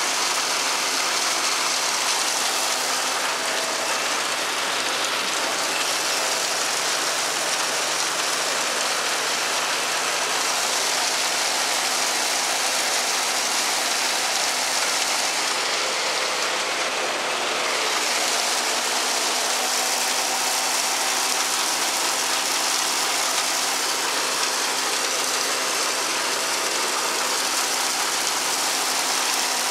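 Meyer forage wagon unloading chopped corn silage into a running silage blower. The machinery makes a steady whir with a low engine hum beneath, and the falling silage adds a constant hiss.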